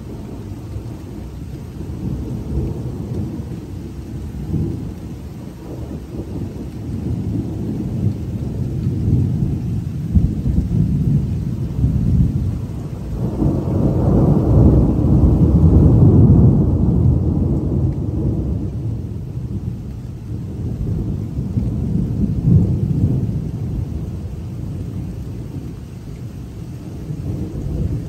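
Thunder from a lightning flash rolling on in long low rumbles, swelling to its loudest about halfway through and then slowly ebbing.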